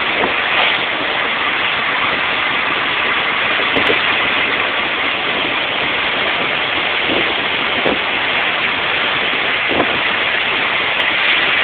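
Steady in-cabin noise of a twin-turbo Subaru Impreza cruising at a constant speed: engine, tyre and wind noise blended into an even rush, with no revving or gear changes.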